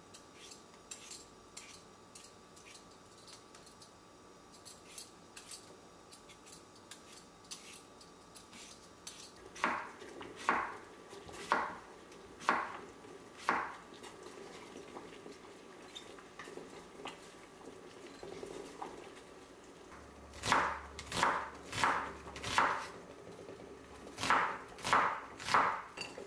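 Faint scratchy scraping of a vegetable peeler on potatoes, then a kitchen knife knocking down onto a wooden cutting board while slicing cucumber thinly. The knocks come about once a second from about ten seconds in, then in two quick runs of four near the end.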